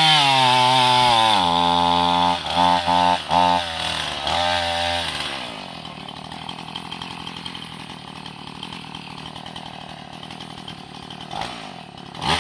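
Two-stroke chainsaw running hard in a cut, its pitch dropping as it labours, then sputtering in several short bursts and dying about five seconds in: the bar is stuck in the log and the motor is struggling. A short burst of engine sound comes again near the end.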